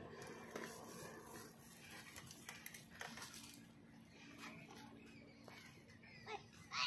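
Faint scraping and light scattered knocks of a child's hands and shoes against a tree trunk as he climbs and hangs from it. A bird gives a couple of short chirps near the end.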